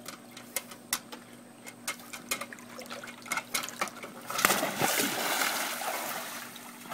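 Water dripping in scattered small drops from a soaked dog standing at the pool's edge, then a loud splash about four seconds in as the dog jumps into the swimming pool, followed by water churning and slopping for a couple of seconds as it lands and starts paddling.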